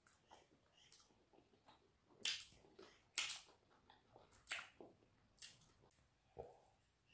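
Close-up mouth sounds of eating eba and okra soup by hand: soft chewing with wet lip smacks. The sharpest smacks come about two, three and four and a half seconds in.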